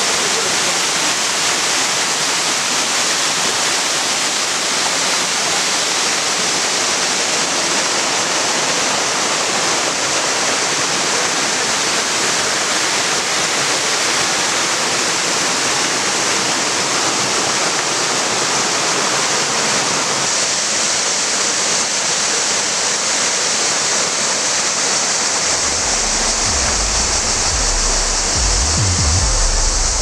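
Steady rush of a small mountain waterfall cascading over rocks into a stream. Background music with a low bass line comes in near the end.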